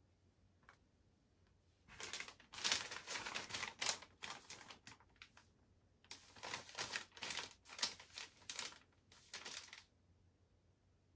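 Paper instruction leaflet rustling and crackling as it is unfolded and handled, in two spells of a few seconds each.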